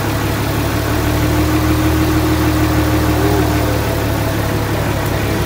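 LQ9 6.0-litre V8, swapped into a Mazda RX-7 FD, idling steadily, heard from underneath close to its exhaust headers.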